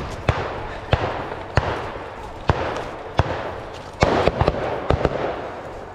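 Airsoft guns firing single shots: sharp pops spaced roughly half a second to a second apart, with a quick cluster of several about four seconds in.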